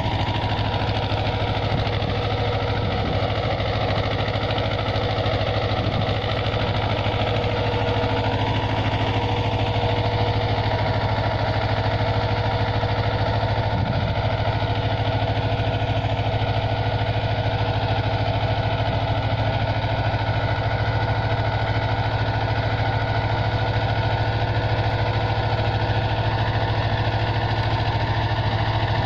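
Small compact tractor's engine running steadily under load as it pulls a ridging implement through the soil, its note unchanging.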